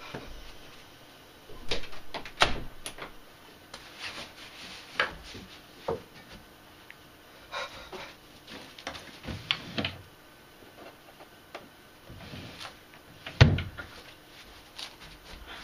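Scattered knocks, bumps and clatters, with a hard thump near the end, like things being handled or moved in a small room.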